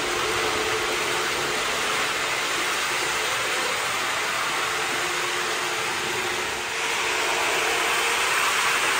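Lionel Amtrak Acela O-gauge model train running on three-rail track: a steady rolling rush of wheels and motors with a faint hum. It gets a little louder about seven seconds in as the train passes close by.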